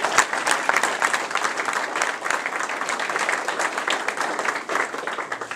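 A crowd of people applauding, many hands clapping in a dense, steady patter that dies away near the end.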